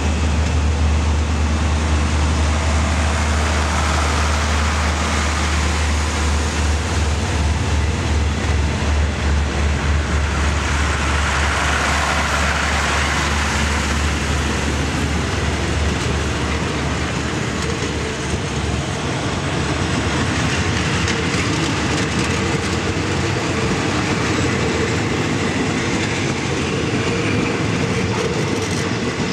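Rapid train hauled by diesel locomotive D.4519 running by. A strong low, pulsing engine drone fades out about halfway through, leaving the steady rumble and clatter of the carriages' wheels on the rails.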